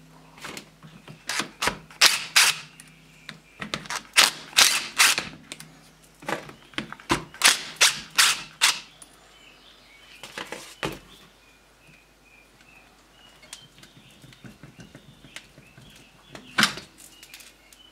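Cordless driver undoing the six T30 Torx bolts on an air-suspension compressor's dryer cover in a string of short, sharp bursts over the first half. Lighter clicks of handling follow, and then a single knock near the end as the aluminium cover comes off.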